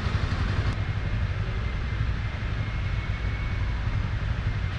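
Small motorcycle engines running on a licence-test course: a steady low rumble with a slight pulse.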